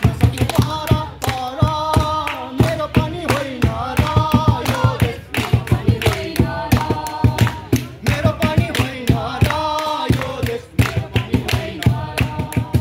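Live singing with steady, rhythmic hand clapping from the performers.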